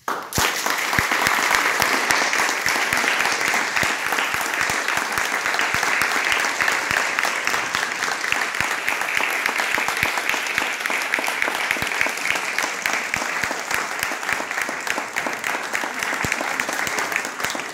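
Audience applauding, breaking out all at once after a silence and keeping up steadily, easing a little near the end.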